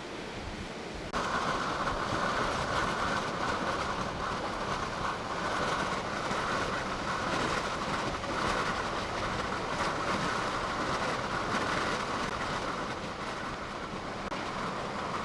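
Steady storm noise of wind and surging harbor water, starting abruptly about a second in and holding loud with a constant hissing roar.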